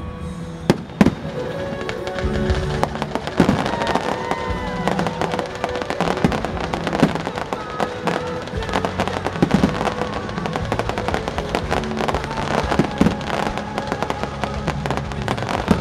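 Fireworks going off in rapid succession: aerial shells bursting and crackling almost continuously, with two sharp loud bangs about a second in, over music playing throughout.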